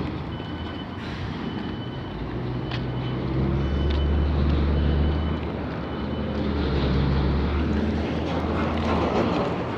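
Heavy vehicle engine running with a low, steady drone that swells and eases, with a faint high beep repeating about once a second for the first several seconds.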